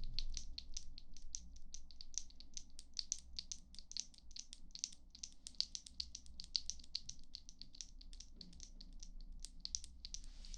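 Light, rapid ASMR clicking, about four or five crisp clicks a second, kept up steadily until just before the end.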